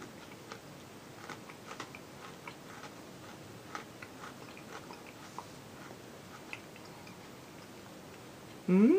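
A person chewing a bite of a thin mint-filled Oreo cookie, with faint, irregular crisp clicks. A voice comes in just before the end.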